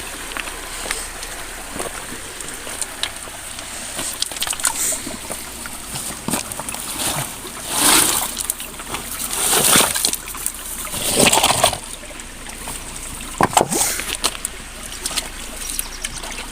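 Splashing and sloshing in shallow muddy pond water as it is stirred by hand, with a few louder splashes in the middle and later part.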